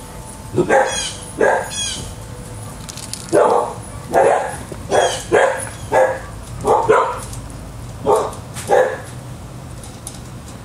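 A dog barking repeatedly, about a dozen short barks, some in quick pairs, stopping about nine seconds in.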